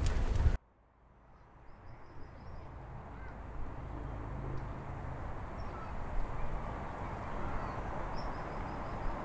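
A loud outdoor sound, heavy in the low end, cuts off abruptly half a second in. Then an evening city-edge ambience fades in: a steady hum of distant traffic, with a small bird's faint high trills about a second in and near the end, and a few single chirps.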